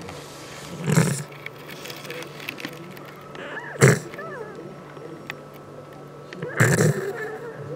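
Sleeping cat snoring: three snores about three seconds apart.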